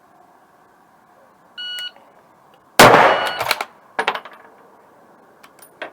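A short electronic beep, then a single loud gunshot about a second later with a ringing tail, and a second, weaker sharp crack about a second after that.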